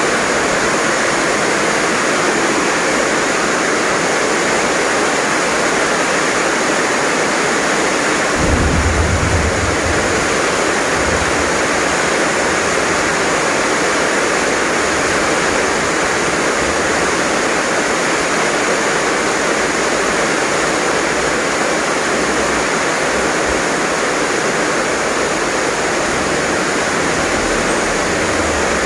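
Heavy rain pouring steadily, a dense even hiss of downpour. A low rumble comes in about eight seconds in and keeps surfacing faintly after.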